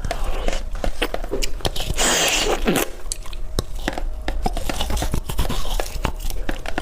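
Close-miked biting and chewing of colourful ice, with many sharp cracks and crunches and a longer crunch of grinding ice a couple of seconds in.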